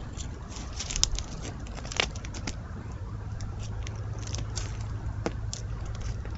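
Irregular crackling and ticking, as of dry leaves and twigs disturbed close to a trail camera, with sharper snaps about one, two and five seconds in, over a steady low hum.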